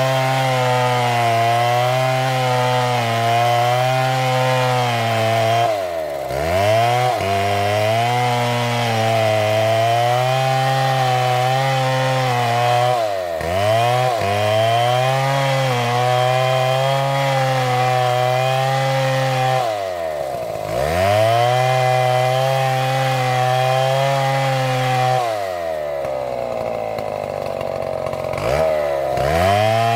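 Large STIHL two-stroke chainsaw running at high revs as it cuts into a tree trunk. The engine note dips and climbs straight back up three times, then drops for a few seconds near the end before revving up again.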